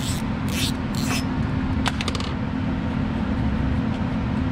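Ratchet wrench and socket clicking and clinking on metal while loosening the nuts that hold a small generator's air cleaner assembly. A few sharp clinks come in the first second, then a quick run of clicks about two seconds in, over a steady low hum.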